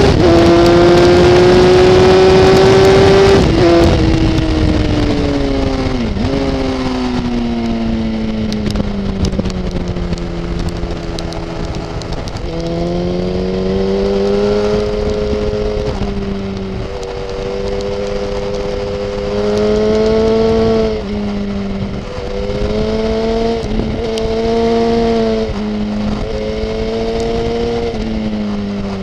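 Onboard sound of a sport motorcycle's engine lapping a race track: high revs with the pitch climbing under full throttle, then a sharp drop about three and a half seconds in as the throttle closes. The rest holds a lower, steady note through the corners, with short dips and rises as gears change, over the rush of wind.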